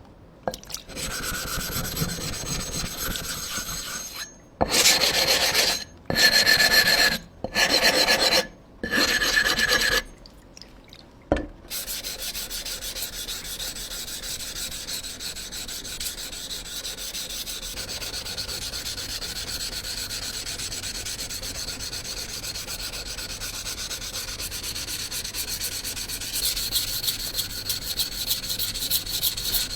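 A blade being sharpened, rubbing against an abrasive surface: four loud separate strokes a few seconds in, a single click, then long steady rubbing that gets louder near the end.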